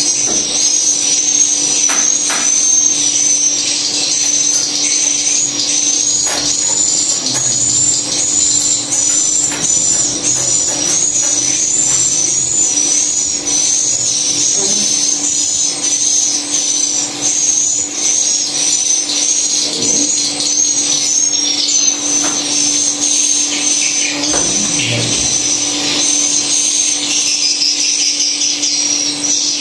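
Swiftlet calls repeating rapidly and steadily as high twittering chirps, over a steady low hum.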